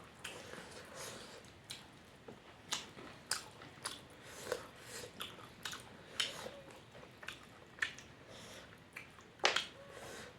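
Close-miked eating sounds from a mukbang of small-fish curry (ngahei thongba): chewing with irregular wet clicks and mouth smacks, about one or two a second. A louder smack comes near the end.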